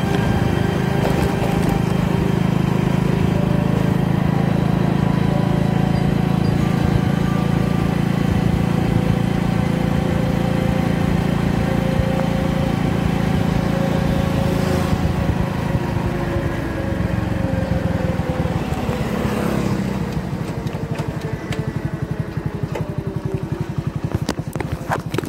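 An engine running steadily, its pitch sinking and level easing off about two-thirds of the way through.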